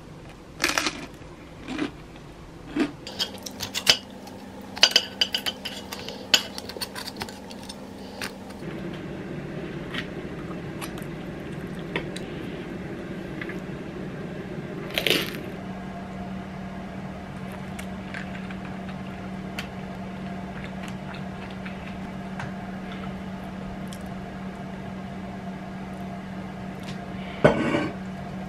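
Dishes and cutlery clinking and knocking, busiest in the first eight seconds. A steady hum comes on about a third of the way in and carries on underneath, with a few more clinks, the louder ones about halfway and near the end.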